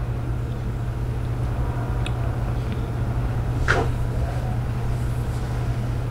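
A steady low hum of background room noise, with one light click a little past halfway.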